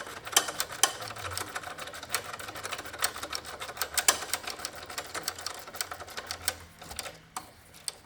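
Hand socket ratchet clicking rapidly as it winds a nut down onto the new drop link's ball-joint stud. The clicking stops about a second before the end.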